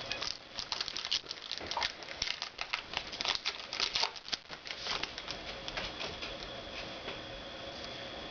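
Trading cards being handled and flipped through by hand: a quick run of light clicks, taps and rustles that thins out after about five seconds.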